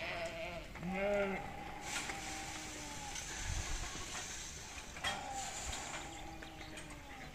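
Several faint bleats from distant grazing livestock, each a drawn-out call that bends in pitch, spaced a second or two apart.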